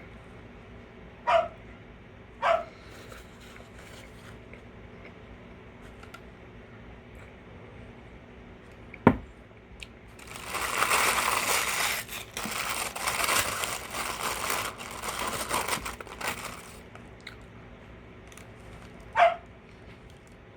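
A dog barks twice, short and quick, about a second in, and once more near the end. In between, a sharp knock is followed by about six seconds of paper crinkling, like food wrappers being handled.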